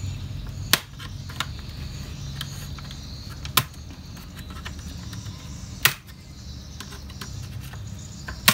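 Plastic retaining clips of an Acer Aspire E5-475 laptop's case snapping loose as the top case is pried off the bottom case by hand: four sharp snaps a couple of seconds apart, with fainter ticks between, over a low steady hum.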